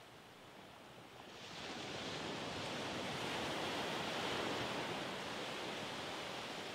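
A small wave breaking and washing up a sandy beach. The rush of surf swells about a second in, is loudest midway, then slowly fades as the water runs up the sand.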